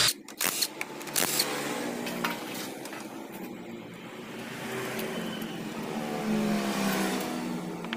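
A few short clicks of tools and bolts, then a motor vehicle engine running nearby, its pitch rising over several seconds and falling away near the end.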